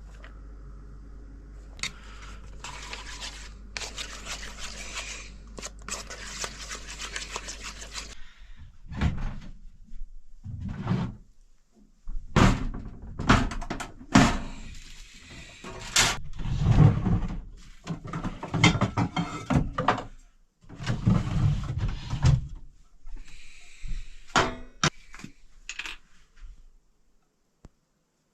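Kitchen food-preparation sounds. For about eight seconds there is fast, continuous scraping over a low hum, and the hum stops. Then come a series of knocks and thuds of utensils and dishes being handled.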